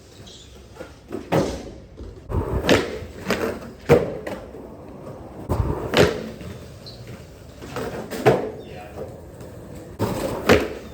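Skateboard session: several sharp, irregularly spaced clacks and slaps of a board and wheels hitting the ground, about seven over the stretch, over a low rolling rumble.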